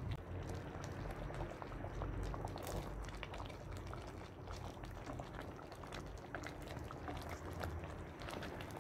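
Thick chicken stew simmering in a pot, bubbling with many small irregular pops.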